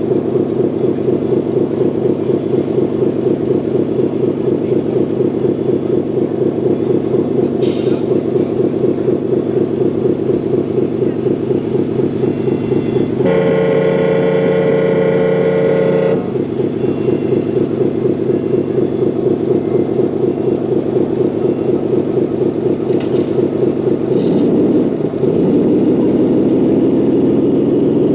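Engine-like running of 1/14 scale RC construction trucks and machines, a steady fast-pulsing drone. For about three seconds past the middle a strong steady pitched tone with many overtones sounds over it. Near the end the pitch shifts and the sound rises, as in revving.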